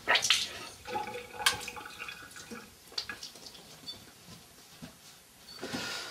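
Water splashing in a bathroom sink as a face is washed with the hands, loudest in the first second or two, then scattered drips and small knocks, with a short rush of noise near the end.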